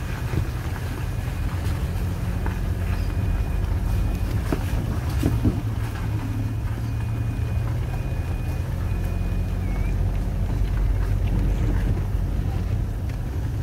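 Steady low engine rumble from a moving vehicle, with wind noise on the microphone.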